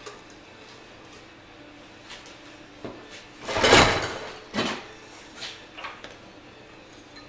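A 1937 Johnson KA-37 outboard's recoil starter cord pulled hard once, a sliding rush about three and a half seconds in, followed by a shorter pull-like sound and a few light knocks. The motor does not catch and run.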